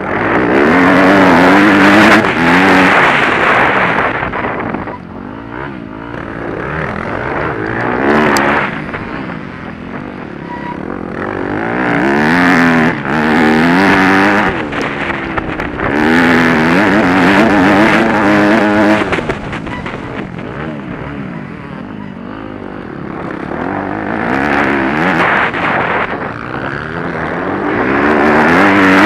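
Dirt-bike engine heard from on board, revving hard in repeated surges and backing off between them, its pitch climbing and falling each time.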